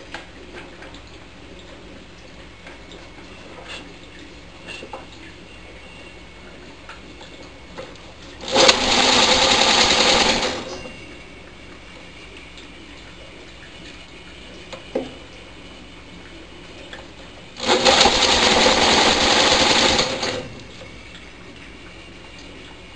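An electric drill spinning a lawnmower engine over by its crankshaft, twice in bursts of about two seconds each, with a fast even chugging. The engine is being fed hydrogen-oxygen (HHO) gas from an electrolysis cell and does not catch.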